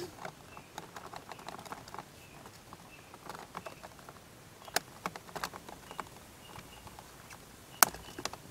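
Scattered small clicks and rustling from hands handling wiring and plastic trim under a car's dashboard. Two sharper clicks stand out, the louder one near the end.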